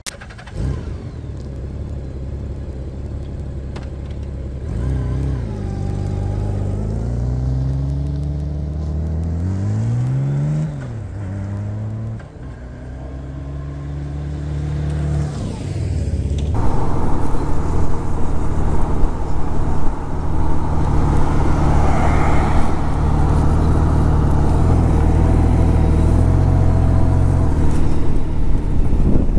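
Motor vehicle engine running steadily, then accelerating, its pitch rising and dropping back several times as it shifts up through the gears. From a little past halfway it settles into steady cruising, with wind and road noise over the engine.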